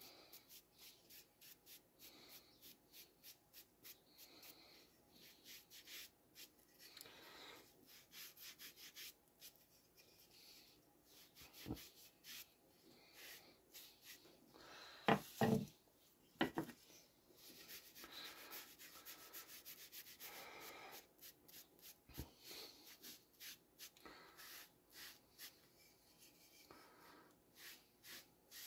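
Kitchen sponge rubbing a liquid finish onto a small square wooden tile in quick repeated strokes, a faint scratchy swishing. A few louder knocks come about halfway through.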